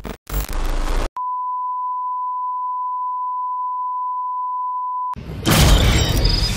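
A second of broken TV static, then a steady single-pitch television test-pattern tone held for about four seconds that cuts off abruptly. Just after five seconds in, a loud, dense, noisy sound effect with a heavy low end starts.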